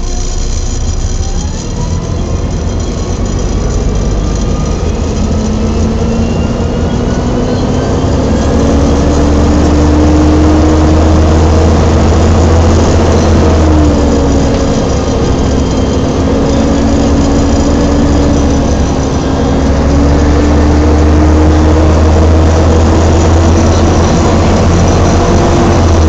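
Volvo B7TL bus's Voith automatic gearbox whining as the bus accelerates, heard from inside the bus: the whine climbs steadily in pitch, drops sharply at an upshift about halfway through, then climbs again, with a heavy drone from the six-cylinder diesel engine under load.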